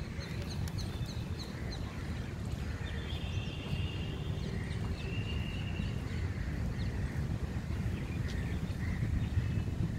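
Outdoor ambience: a steady low rumble with birds chirping and calling, including a few short held whistled notes a few seconds in.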